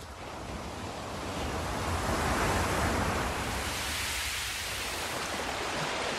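A broad rushing noise that swells over the first two seconds or so, peaks, then holds roughly steady.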